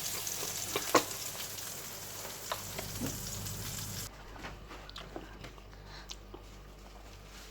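Burger patties sizzling in a frying pan, a steady hiss with a sharp knock about a second in. About four seconds in the sizzle cuts off abruptly, leaving only faint clinks.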